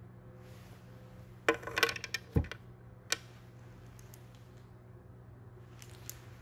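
Light handling noises over a faint steady hum: a quick cluster of clinks and rattles about a second and a half in, a dull thump just after, then a few faint single clicks.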